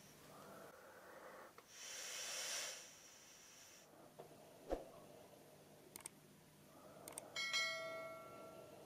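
Handling sounds of a cured silicone mold being opened around a lure master: a soft rustling scrape about two seconds in, a few light clicks, and a short ringing tone near the end that fades out.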